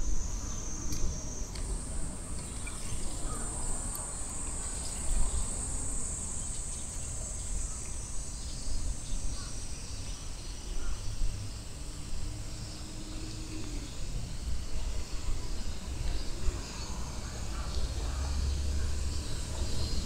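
A chorus of summer cicadas droning steadily and high-pitched, shifting to a higher pitch about a second and a half in, over a low uneven rumble.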